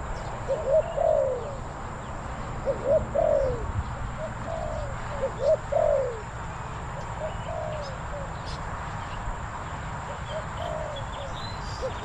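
Spotted dove cooing, repeated phrases of two short notes and then a longer falling coo, about every two to three seconds, some phrases fainter than others. Faint small-bird chirps come in near the end.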